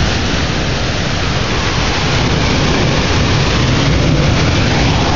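Heavy rain and wind of a severe thunderstorm: a steady, loud rushing hiss with a low rumble underneath.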